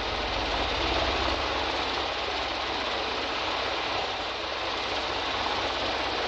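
Cessna 152's four-cylinder Lycoming engine and propeller running steadily at low taxi power, a drone with a fast low pulse over a steady hiss.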